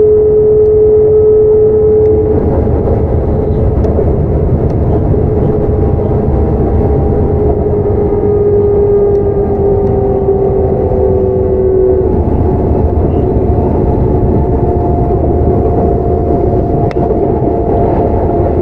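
Running sound inside a Sotetsu 9000 series electric train: the whine of its Hitachi IGBT inverter and right-angle cardan drive over the rumble of wheels on rail. The whine holds steady for about two seconds, then slowly falls in pitch, and a higher tone takes over about twelve seconds in.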